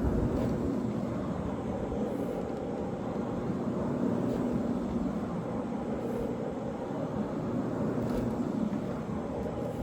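Carpet-cleaning floor machine running steadily, its fiber pad scrubbing the carpet: an even, low machine drone with no breaks.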